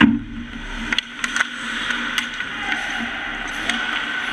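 Ice hockey play heard from beside the net: a loud knock right at the start, then a few sharp clacks of sticks and puck over a steady rink din.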